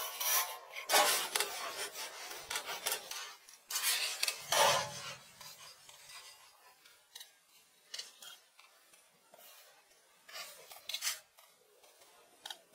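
Scattered metal clinks, knocks and scraping from hands-on building work, loudest in two clusters about one and four to five seconds in, then fainter occasional clicks.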